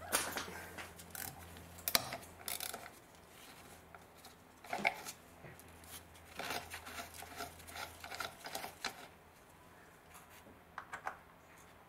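Scattered clicks and scrapes of a Torx driver and gloved hand working at a bolt on a rusty metal covering plate, with a faint low hum that stops about nine seconds in.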